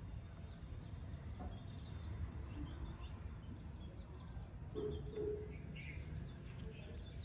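Chickens foraging: two short, low clucks about five seconds in and faint high chirps scattered throughout, over a steady low rumble.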